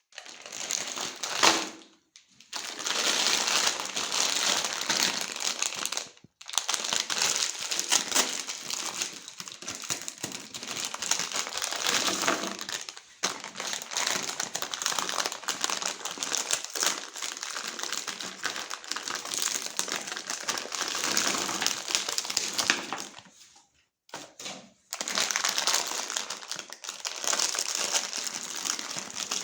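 A meat grinder crushing colourful candy: a continuous crackling crunch, broken off a few times by short silent gaps.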